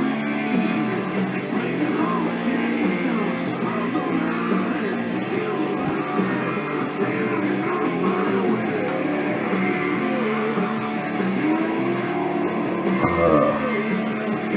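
Rock music with guitar and singing playing in the background.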